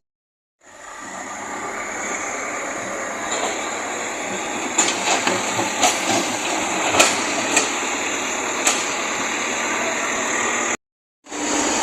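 Backhoe loader at work: a steady mechanical noise with several sharp clanks through the middle. The sound cuts out briefly at the start and again near the end.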